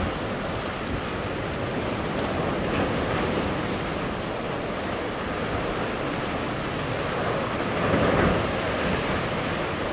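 Sea surf washing against the foot of a rocky cliff, a steady rushing with wind buffeting the microphone; the wash swells briefly about eight seconds in.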